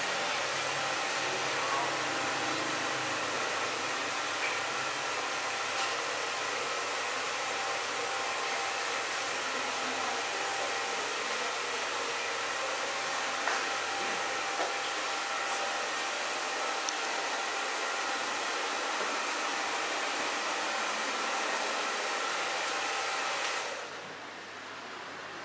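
Steady rushing noise with a few faint steady tones in it, dropping away suddenly near the end.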